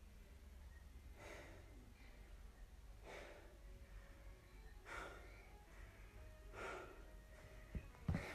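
A person breathing hard while catching their breath after exercise: four deep, noisy breaths, about one every two seconds. A couple of soft low thumps come near the end.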